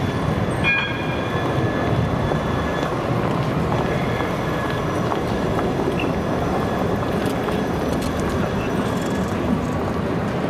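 A city tram running on street track, a steady rumble with a faint high whine over the first few seconds.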